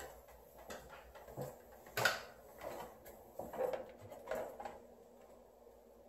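Footsteps walking down a staircase and on across a tiled floor, about one step every two-thirds of a second, the loudest about two seconds in. The steps die away shortly before the end.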